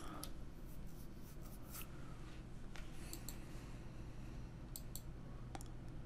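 Faint computer mouse clicks, a few scattered short clicks, over a low steady electrical hum.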